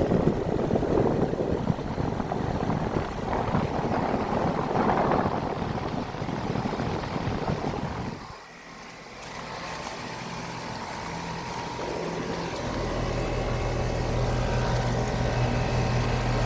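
Payne heat pump outdoor unit running: its condenser fan rushes air with wind buffeting the microphone through the first half, then, after a short dip, a steady low hum from the compressor and fan motor that grows stronger near the end.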